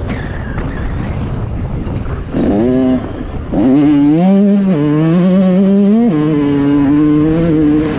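Motocross bike engine heard from the rider's helmet. A rough rumble gives way to a short throttle blip about two seconds in. Then the engine pulls hard, rising in pitch, with its pitch dropping at two upshifts, about five and six seconds in, before holding steady near the end.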